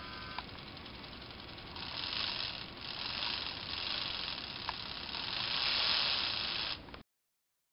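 Lego Power Functions motor spinning the tractor's model V6 engine: a high, noisy whir that swells and drops four times as it is worked from the remote. About half a second in a click, as a steady motor whine stops; the sound cuts off suddenly near the end.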